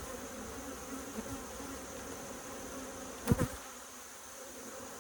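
Honeybees buzzing steadily around an opened hive, agitated and getting mad. About three seconds in, a single brief knock stands out as the loudest sound.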